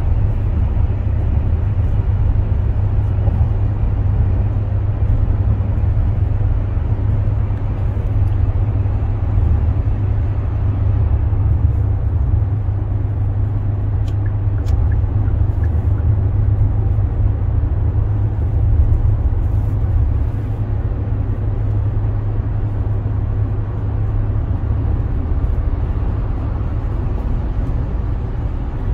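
Steady low road rumble of a car cruising at highway speed, heard inside the cabin: tyre and engine noise, strongest at the bass end.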